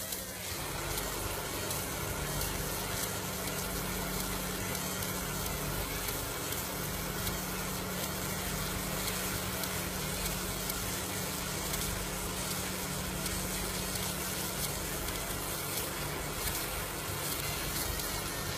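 Laser marking machine running while it engraves lettering into a metal firearm receiver: a steady hiss over a low hum.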